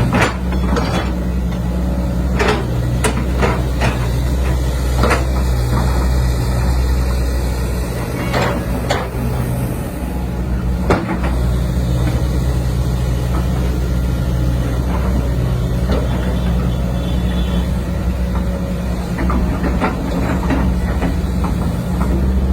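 Heavy diesel engine of an earthmoving machine running steadily with a low hum, with frequent sharp knocks and clanks over it.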